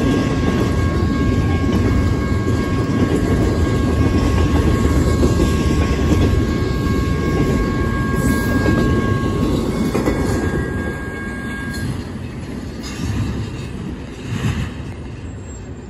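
Double-stack intermodal freight cars rolling past on the rails with a loud, dense rumble, with steady high ringing tones over it. The rumble fades away after the last car goes by, about two-thirds of the way through.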